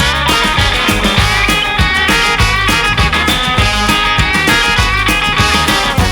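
Instrumental break of an upbeat country rock'n'roll song, with guitar over a steady beat.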